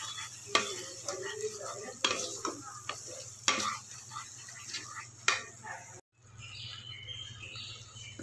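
Wooden spatula stirring and scraping a thick blended paste around a non-stick pan, with sharp scrapes about every second and a half over a light sizzle as the paste fries down. The sound cuts out briefly about six seconds in.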